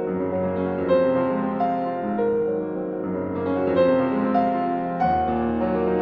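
Background instrumental music led by piano, with held notes that overlap and change every second or so.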